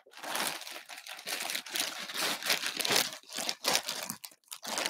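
Clear plastic bag crinkling and rustling in irregular handfuls as a jersey is handled in it.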